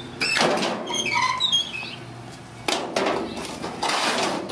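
Loaded wheelbarrow being pushed, with short squeaks that rise and fall about a second in, and bursts of rattling and scraping at the start, near the middle and near the end as the cut-off half bathtub and debris shift in the tray.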